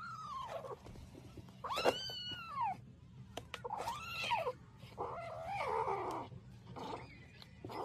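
Orange tabby kitten meowing with its face in a food bowl: about five short cries, each rising then falling in pitch, roughly one every one to two seconds.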